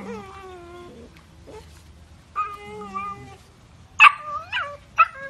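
Young German Shepherd puppy howling: two drawn-out wailing calls, the first falling in pitch, then a few short, louder yips near the end.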